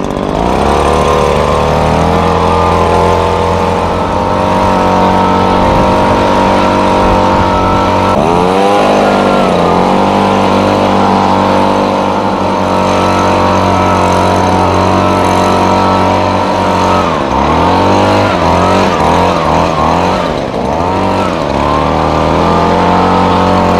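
Gas handheld leaf blower engine running at full throttle. Its pitch dips and climbs back about eight seconds in, then again several times between about 17 and 21 seconds in.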